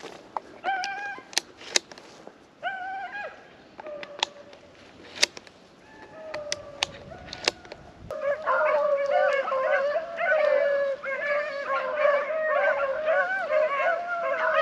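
A pack of beagles baying on a rabbit's trail: a few separate cries at first, then from about eight seconds in the whole pack in full cry, many overlapping voices. Sharp snaps of dry brush are heard now and then during the first half.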